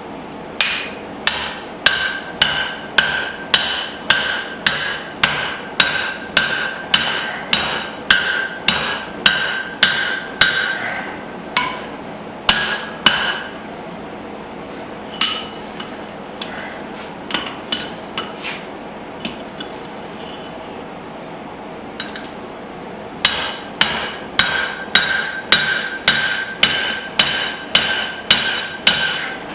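Hammer blows driving a small drift into hot spring steel to open a hatchet's eye hole, at about two strikes a second, each with a metallic ring. About halfway through the blows break off for several seconds with only a few scattered strikes, then pick up again at the same pace.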